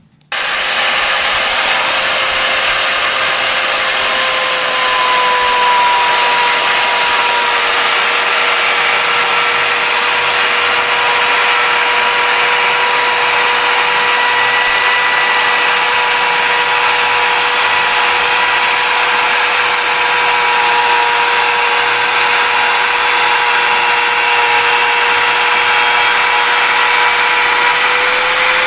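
Wood router (milling machine) motor running at a steady high whine with the noise of the cutter, starting abruptly about half a second in and holding an almost constant pitch.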